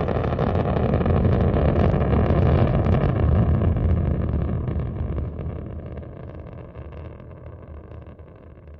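Rocket launch roar: a heavy, crackling rumble, steady for about four seconds and then fading away.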